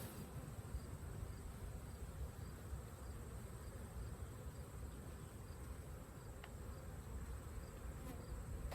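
Honeybees buzzing, a faint steady hum.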